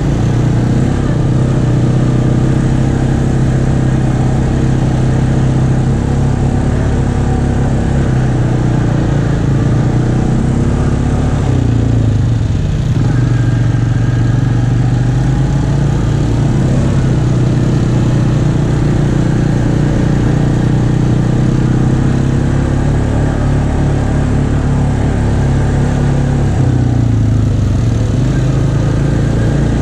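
Off-road vehicle engine running steadily at trail speed. Its pitch dips and shifts about twelve seconds in and again near the end, as the throttle changes.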